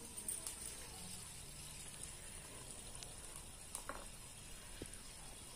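Faint steady sizzling of hot oil frying a small puri in a miniature kadhai over a small wood fire, with a few light clicks here and there.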